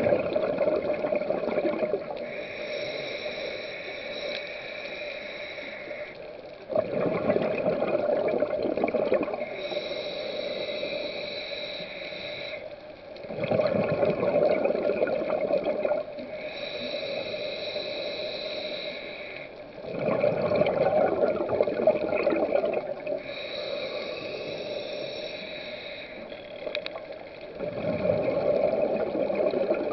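Scuba diver breathing through a regulator underwater. A hissing inhale alternates with a louder rush of exhaled bubbles, about one breath every six to seven seconds, with five bubble bursts in all.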